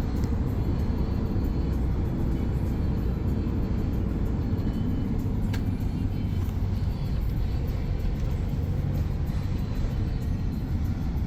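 Steady low rumble of a running vehicle, with one sharp click about halfway through.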